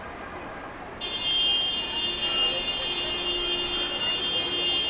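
A loud, steady, high-pitched electronic buzzer tone starts abruptly about a second in and holds unbroken for about four seconds, over the hum of a busy street.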